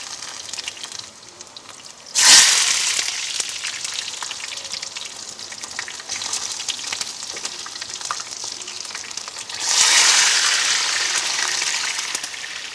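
Hot oil sizzling in a cast-iron pan, flaring up suddenly and loudly about two seconds in and again near ten seconds as food goes into it, each surge dying down slowly.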